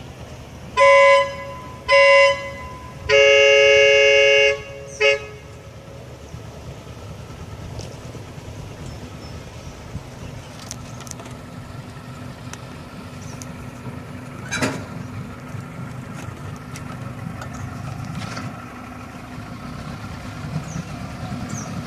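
A boat horn sounds four blasts, two short, one long, then one short, followed by the pontoon boat's motor running low and steady, growing louder as it comes near.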